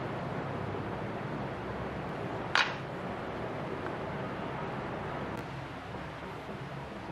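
Steady hiss and low hum, with one sharp clack about two and a half seconds in: an aluminium speed square being set down on a wooden board.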